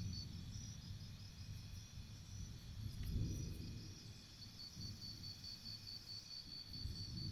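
Forest insect calling in a fast pulsed high-pitched trill, which breaks off briefly near the start and resumes about three seconds in. Beneath it runs a low rumble that swells at about the same moment.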